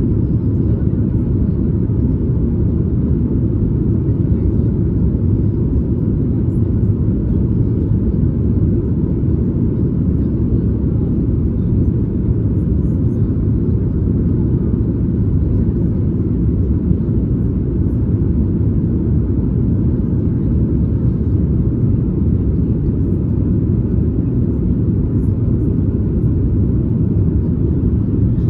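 Steady low rumble inside the cabin of a Boeing 737 MAX 8: engine and airflow noise heard from a window seat just behind the wing, unchanging throughout.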